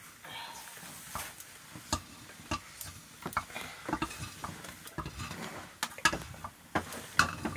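Kitchen utensils and cookware knocking and clinking irregularly, as in stirring or handling pots during cooking.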